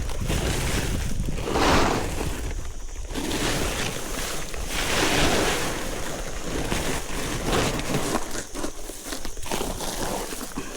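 A rushing noise that swells and fades, like wind buffeting the microphone.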